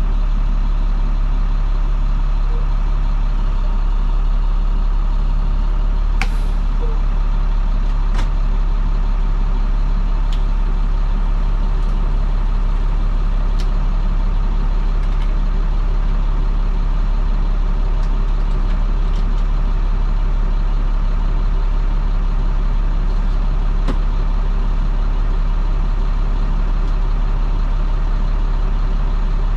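A 2010 IC FE school bus's MaxxForce DT inline-six diesel engine runs with a steady hum, and a few light clicks or rattles come through, the sharpest about six seconds in.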